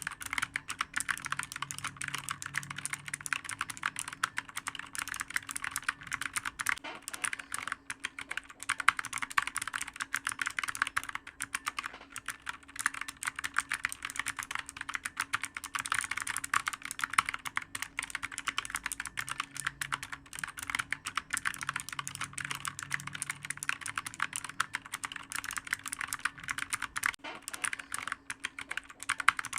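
Computer keyboard being typed on quickly and without a break: a dense, continuous stream of sharp key clicks, with a faint steady hum underneath.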